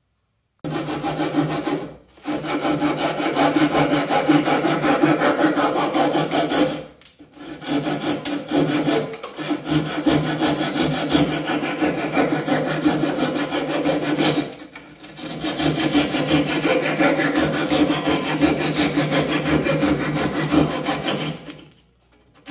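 Handsaw cutting through cedar kayak strips, trimming their ends close to the hull's stem: fast back-and-forth strokes with short pauses about 2, 7, 9 and 15 seconds in.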